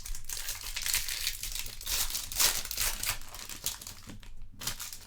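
Foil trading-card pack wrapper being torn open and crinkled by hand, a dense crackling that is busiest midway and thins out near the end.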